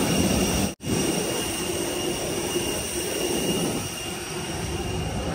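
Steady jet-aircraft noise on the apron: a roar with a high whine over it, from airliner engines or an auxiliary power unit. It cuts out for an instant about a second in and is a little quieter at the cabin door near the end.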